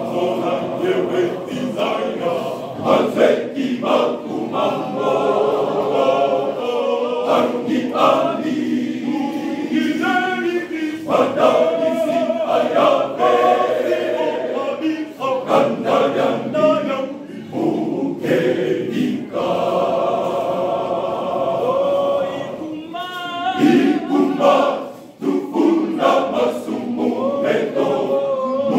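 Men's choir singing a cappella in harmony, with many voices together.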